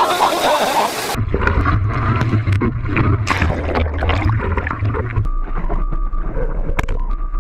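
Rushing surf water and wind buffeting a board-mounted action camera's microphone, heard as a heavy low rumble. About a second in, onlookers' voices give way to the rumble, and a faint steady tone joins it for the last two seconds.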